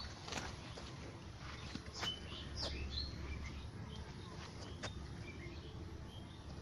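Scattered short bird chirps, a few seconds apart, over faint outdoor background noise.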